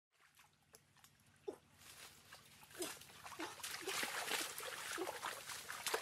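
Puppies whimpering in short cries that fall in pitch, several in a row, over splashing and trickling water that grows louder from about two seconds in.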